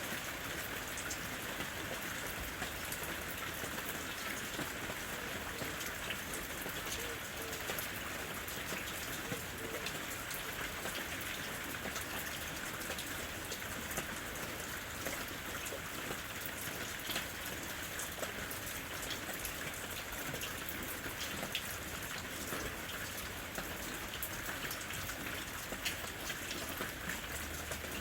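Steady rain falling in a forest: an even hiss with many close, sharp individual drop hits scattered through it.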